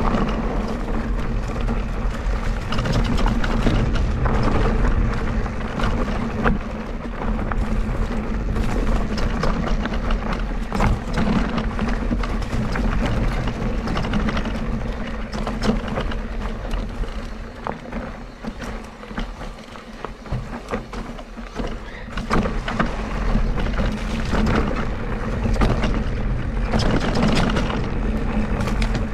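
Mondraker Crafty Carbon RR electric mountain bike ridden over rough trail: tyres rolling on dirt and rock with many sharp knocks and rattles from the bike, over a steady low wind rumble on the microphone. It goes quieter for a few seconds past the middle.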